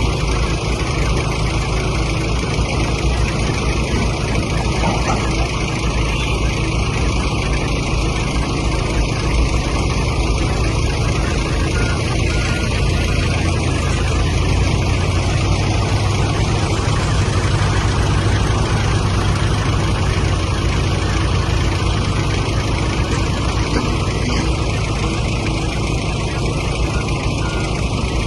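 Excavator's diesel engine running steadily under work, a continuous low drone that swells slightly in the middle.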